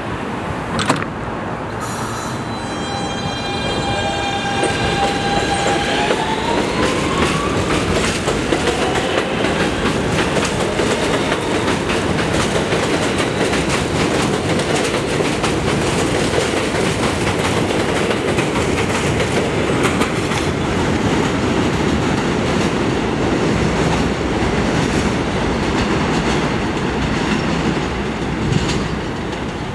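R160B subway train with Siemens propulsion pulling out: doors close with a thump about a second in, then the traction motors whine at a steady pitch that starts rising about six seconds in as the train picks up speed. This gives way to the rumble and clickety-clack of the cars rolling past over the rail joints.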